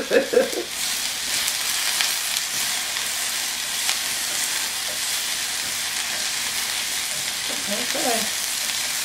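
Bell pepper and onion strips sizzling steadily in a hot grill pan as they are turned and stirred with tongs.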